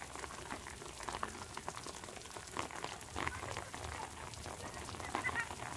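Rain pattering, a dense scatter of small drop ticks, with a few faint high chirps about five seconds in.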